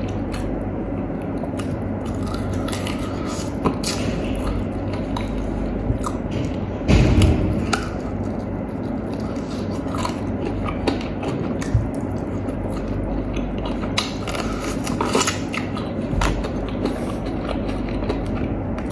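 Close-up chewing and biting of crispy fried chicken, with the crackle of torn skin and scattered short crunchy clicks, over a steady low background hum. A louder burst of crunching comes about seven seconds in.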